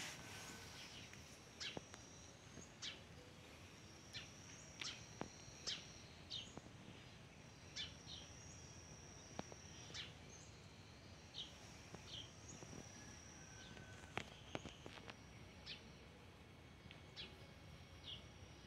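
Faint bird calls: scattered short, sharp chirps, with thin high notes each held for a second or two, over a low background hiss.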